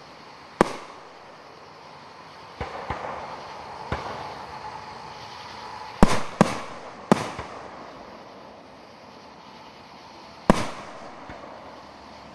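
Aerial firework shells bursting overhead: about eight sharp bangs at irregular intervals, each trailing off in a short echo. The loudest are a quick run of three about six to seven seconds in and a single one near the end.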